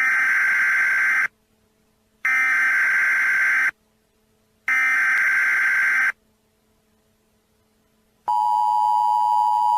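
Three bursts of Emergency Alert System SAME header data tones, each about a second and a half long with about a second between them, then about eight seconds in the steady two-tone EAS attention signal starts.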